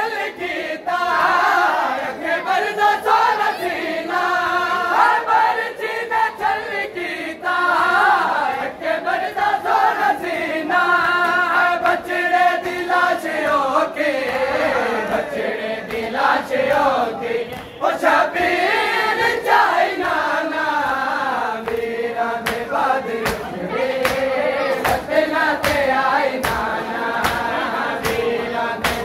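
A group of men chanting a Punjabi noha, a Shia lament, together in unison. Open-handed chest-beating (matam) slaps keep time with it; the slaps become clear and regular, about two a second, in the last quarter.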